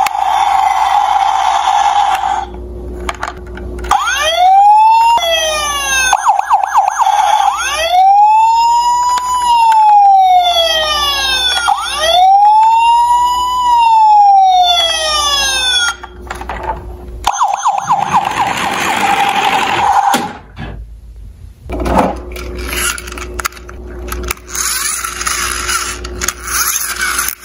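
Electronic siren from a Tonka toy police truck's sound module, played through its small speaker after the roof buttons are pressed. A steady tone gives way to a wailing siren that rises and falls in about four slow sweeps. Near the end the siren stops and rougher, noisier sound follows.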